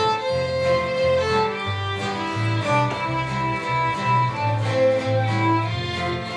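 Fiddle playing an instrumental break between sung verses, with long held melody notes over guitar accompaniment with moving bass notes.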